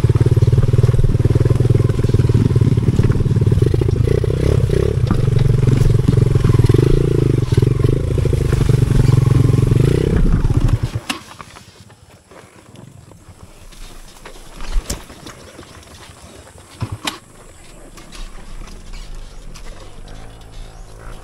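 Enduro dirt bike engine running loudly, its pitch wavering with the throttle, then cutting off suddenly about halfway through. A quieter background follows, with a couple of sharp knocks and a faint engine sound near the end.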